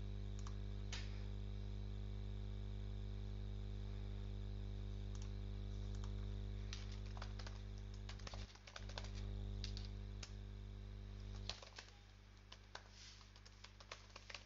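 Typing on a computer keyboard, irregular key clicks from about six seconds in, after a couple of single clicks in the first second, over a steady low electrical hum.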